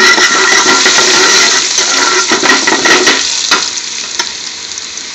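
Chopped garlic sizzling in hot oil in a large metal pot as it is stirred. The sizzle is loud for about the first three seconds, then drops to a quieter hiss with a few light clicks.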